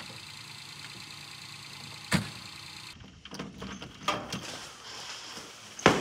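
A vehicle idling with a steady low hum, broken by one sharp thud about two seconds in. Then the knob and latch of a metal hangar door rattle and click as the door is worked open, with a loud knock near the end.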